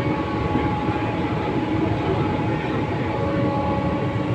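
Loud, steady motor noise on a running Vande Bharat electric train: a constant hum of several steady whining tones over the rumble of the moving train. The uploader blames it on an overhead traction motor that the maintenance staff have not repaired.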